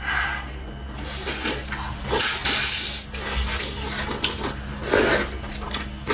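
Close-up slurping and sucking of soup and filling from a crab-roe soup dumpling, with wet mouth and chewing sounds. The longest, loudest slurp comes about two seconds in and lasts about a second.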